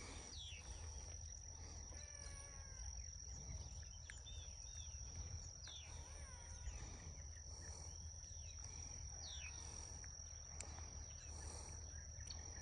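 Quiet pondside ambience: scattered short bird chirps and whistles over a steady high-pitched insect drone and a low rumble.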